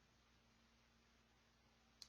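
Near silence: a faint steady hiss with a low hum, room tone with nothing happening.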